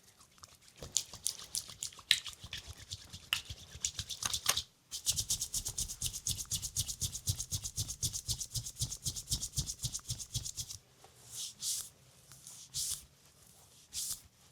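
Hands rubbing skin in a leg massage. Uneven strokes come first, then about six seconds of fast, even rubbing strokes, several a second, and a few slower strokes near the end.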